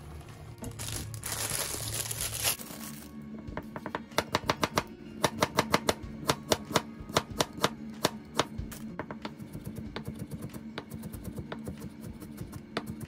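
Santoku knife chopping ginger on a plastic cutting board: a brisk, even run of sharp chops about five a second, turning into lighter, quicker strokes about two-thirds of the way through as the slices are minced. It is preceded by a brief hiss in the first couple of seconds.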